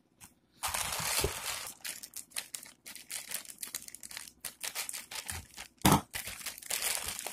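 Plastic courier mailer bag crinkling and rustling as it is handled and pulled open, starting under a second in, with many sharp crackles and one louder crackle near the end.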